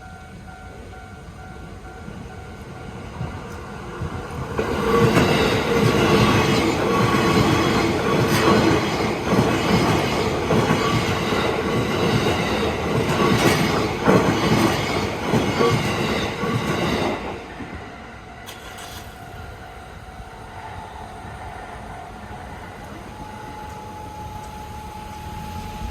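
A JR train passes over a level crossing. It builds from about four seconds in to a loud run of rumble and rhythmic wheel clatter over the rail joints, then falls away after about twelve seconds. A steady warning tone from the crossing signal sounds before and after the train.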